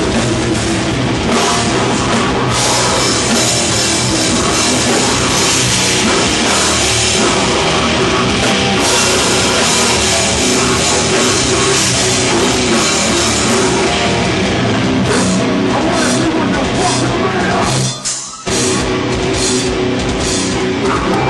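Death metal band playing live: loud, dense heavy metal with a drum kit, broken by a short stop of about half a second near the end before the band comes back in.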